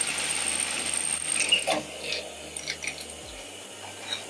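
Sewing machine running steadily, cutting off abruptly about a second and a half in, followed by scattered light mechanical clicks.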